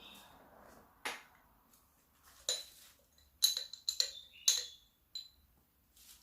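A handful of sharp clinks and knocks of hard objects being handled and set down, a few with a brief ringing edge. They are bunched together about halfway through.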